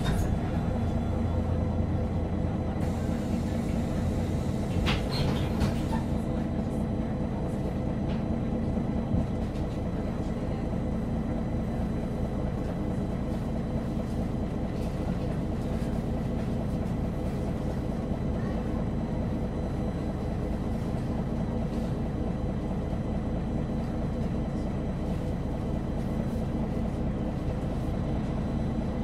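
MAN NG313 articulated city bus's 310 hp diesel engine running steadily, with a constant low hum and a brief rattle about five seconds in.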